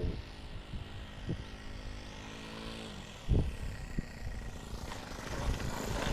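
Radio-controlled model airplane's motor running with a steady pitch that dips slightly about three seconds in, then building again near the end. A few low thumps break in, the loudest just past halfway.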